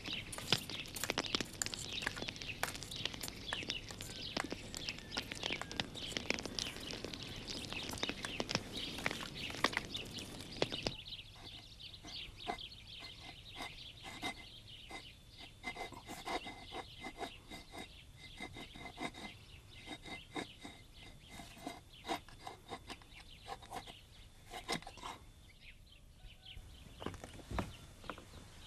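Birds chirping over an outdoor background, with many small knocks and clicks. About eleven seconds in, this gives way to a quieter background with fainter chirps and light taps.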